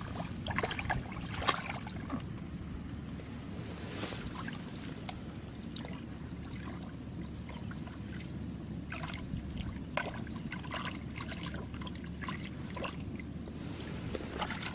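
Hands sloshing and splashing in shallow muddy water in short, scattered splashes, over a steady low rumble of wind on the microphone.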